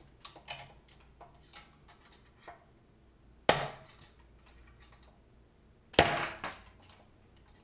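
A hammer striking a flathead screwdriver set against the governor gear's lock ring inside a Honda-clone engine's crankcase: two sharp metallic blows about two and a half seconds apart, each ringing briefly, with fainter ticks before them as the tip is repositioned on the ring. The blows are knocking the lock ring loose to free the governor gear.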